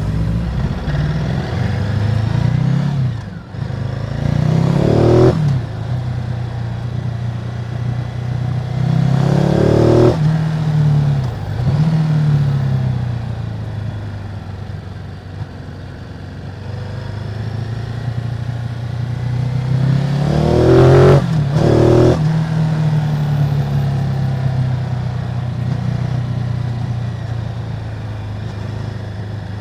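Ducati Multistrada 950's 937 cc Testastretta twin engine on its stock exhaust, accelerating several times. The engine note climbs and then breaks off sharply at each change, with steadier, quieter running in between.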